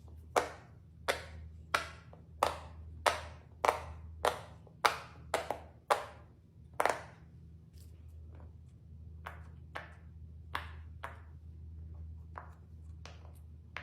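A series of sharp taps or pops, about one and a half a second, each ringing briefly; after about seven seconds they turn fainter and sparser. A steady low hum runs underneath.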